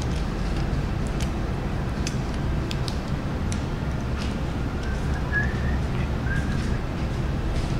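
Steady low background rumble with scattered faint clicks, and a brief faint chirp about five seconds in.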